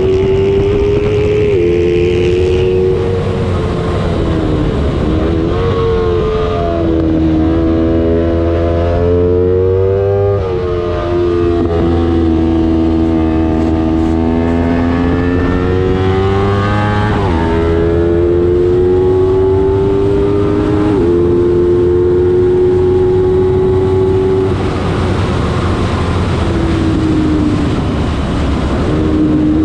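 Small-displacement race motorcycle engine running hard through a lap. Its pitch climbs steadily, then drops sharply at gear changes, and falls away at times as it slows and climbs again.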